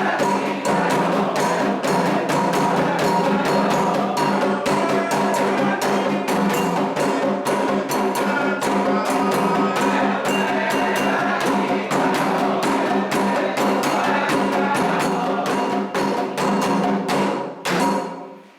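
Candomblé ceremonial music: drums and a sharp, wood-block-like struck percussion keep a fast, steady beat over held pitched tones. It stops abruptly near the end.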